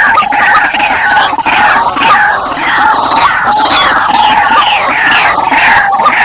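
White-breasted waterhens calling noisily: harsh, overlapping falling notes repeated rapidly, with no break.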